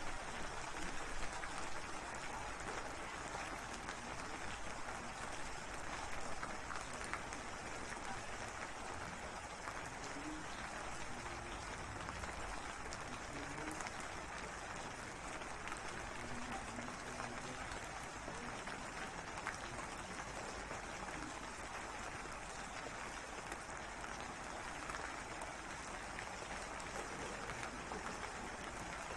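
Steady rain falling, a dense, even patter that holds at one level throughout.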